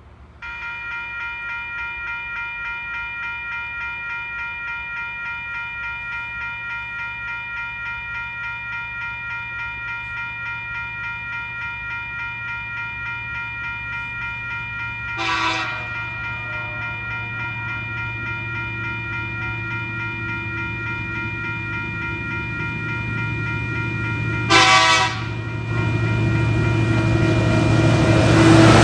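Level crossing warning bell ringing in an even pulsing rhythm as a diesel-hauled freight train led by TasRail locomotives TR16 and TR14 approaches. The locomotive horn gives two short blasts, about halfway through and again some ten seconds later. The low rumble of the diesels grows steadily and is loud near the end as the lead locomotive reaches the crossing.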